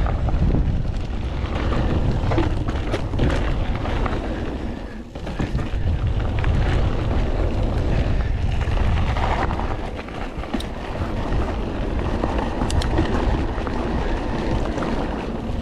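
Mountain bike riding a dirt trail: wind buffeting the microphone over a rumble of tyres on the ground, with scattered clicks and rattles from the bike.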